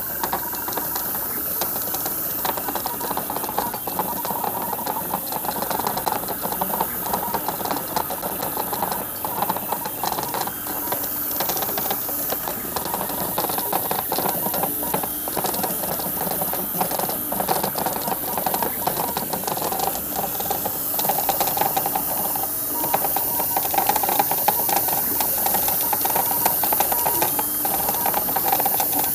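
Airbrush hissing steadily with compressed air while the CNC machine's stepper motors whir and tick, including the stepper that drives the airbrush needle back and forth with constant direction changes to meter the paint.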